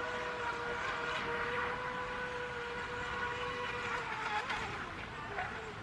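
Radio-controlled speed boat running at speed across a lake, its motor a steady high-pitched whine that wavers and dips briefly about four seconds in.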